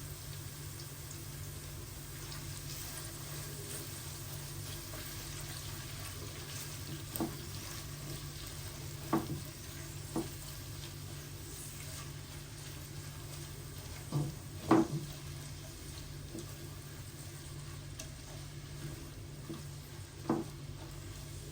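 Food frying in a pan with a steady sizzle while it is stirred, the utensil knocking against the pan about six times, loudest about two-thirds of the way through.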